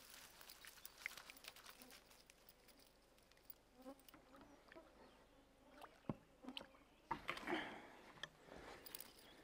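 Near silence outdoors, with a few faint clicks and a brief rustle about seven seconds in.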